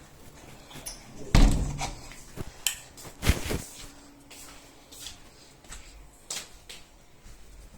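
A few household knocks and thumps: a heavy thump about one and a half seconds in, a second about two seconds later, and a couple of lighter clicks.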